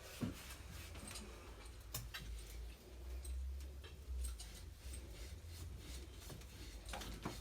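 Faint handling noise: a few small clicks and taps, one about two seconds in and another near the end, over a low rumble.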